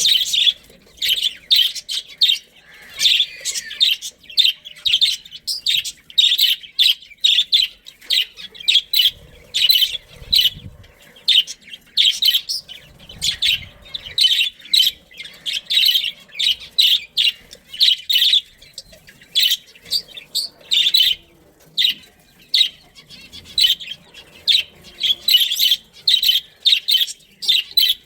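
Budgerigars chirping in a rapid, continuous stream of short, high chirps.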